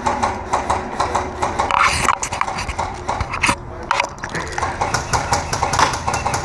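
Airsoft guns firing: a dense, irregular run of sharp clicking shots and knocks.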